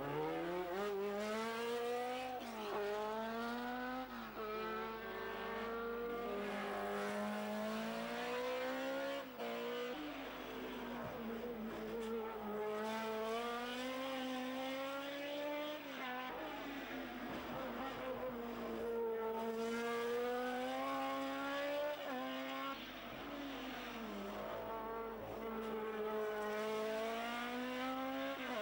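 Open-cockpit sports-prototype racing car engines at full throttle up a hill, the pitch climbing through each gear and dropping back at every shift, again and again.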